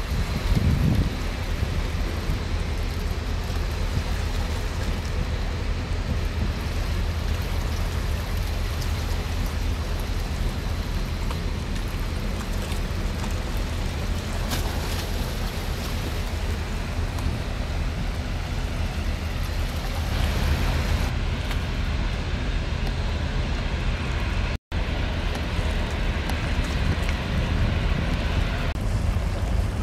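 Wind buffeting the microphone with a steady low rumble, broken once by a split-second cut to silence about 25 seconds in.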